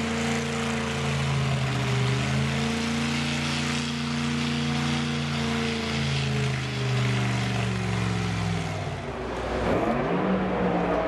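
Drag racing car engines running, their pitch slowly rising and falling. The pitch dips briefly about nine seconds in, then rises again near the end.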